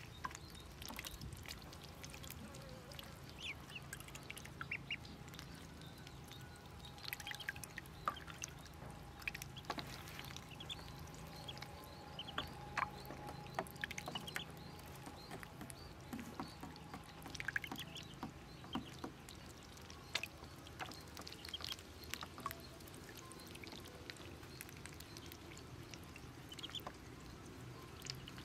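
Pekin ducklings peeping in short, high, scattered chirps while paddling and dabbling in a shallow tub of water, with small splashes.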